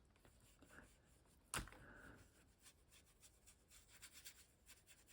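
Near silence with faint rubbing and light scratching on paper as wetted water-soluble crayon colour is spread across the page, and one sharp tap about a second and a half in.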